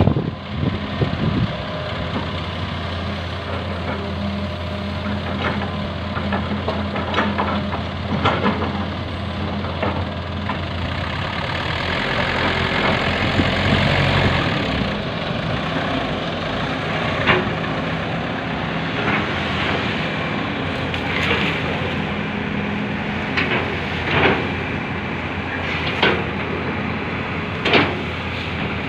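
Heavy diesel engines of an excavator and dump truck running steadily during loading, with the low engine hum falling away about halfway through. Sharp knocks stand out every few seconds.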